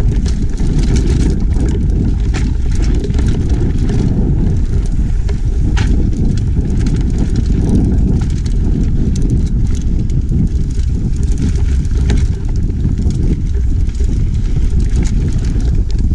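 Mountain bike descending a dirt singletrack: a steady low rumble of tyres rolling over the trail and air rushing past the camera, with frequent rattling clicks from the bike as it runs over bumps.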